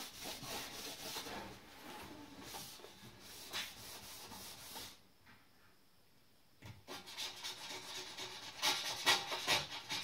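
A hand-held pad rubbed back and forth over an aluminium saw guide rail, scrubbing off leftover double-sided tape residue. The strokes pause briefly about halfway through, then come back quicker and louder near the end.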